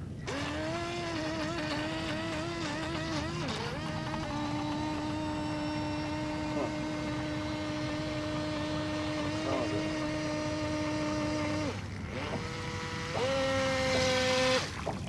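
Force1 Velocity RC speedboat's electric motor whining as the boat runs across the water. The pitch wavers at first, then holds steady for several seconds, drops out briefly about two-thirds of the way through, and comes back higher near the end.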